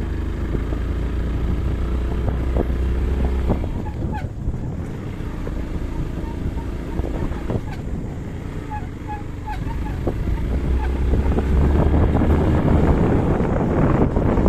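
Motorcycle engine running while riding over a rough dirt road, with rattles and knocks from the bike over the bumps. The engine's low drone fades back for a few seconds midway and comes up louder again near the end.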